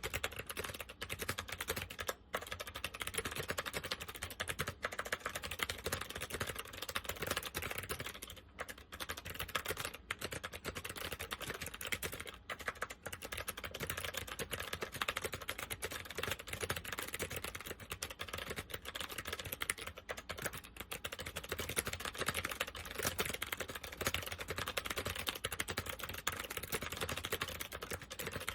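Continuous typing on an SMK 2269 keyboard with second-generation SMK clicky switches (MX-mount), a rapid stream of sharp key clicks with a few brief pauses. The switches are in less than great condition and uncleaned.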